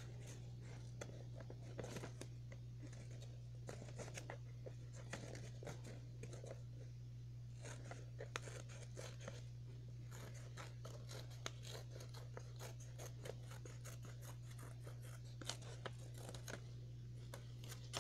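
Scissors snipping through folded brown paper in many short, irregular cuts as two circles are cut out at once, over a steady low hum.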